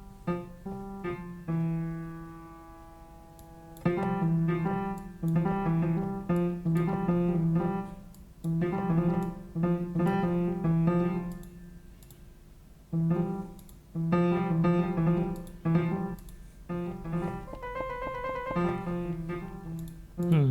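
Sampled piano instrument in Ableton Live 11 played from a keyboard: a held chord, then chords struck again and again in short phrases with brief pauses.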